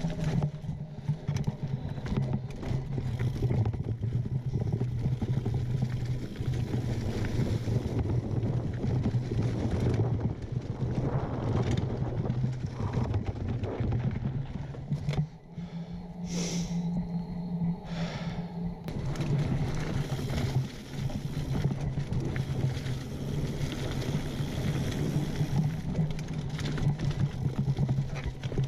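Mountain bike rolling along a dirt singletrack, tyres crunching over leaves, roots and rocks while the chain and frame clatter. A steady low buzz runs underneath, with a short lull about halfway through.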